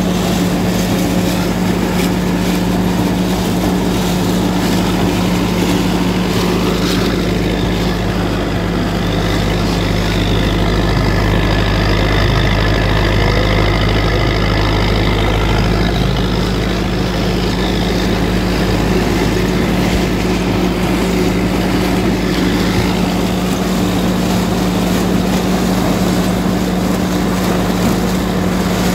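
IMT 577 DV tractor's diesel engine running steadily under load, pulling and driving a SIP Tornado 80 trailed corn picker through standing corn, with the picker's machinery running alongside.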